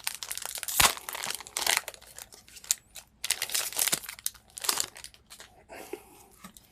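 A trading-card booster pack's foil wrapper being torn open and crinkled, in irregular crackling bursts that die down near the end.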